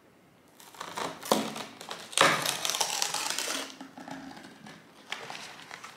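Cardboard protein-bar box being handled and its perforated dispenser flap torn open: a few taps and clicks, then a longer rip of paperboard starting about two seconds in, followed by softer rustling and a last click near the end.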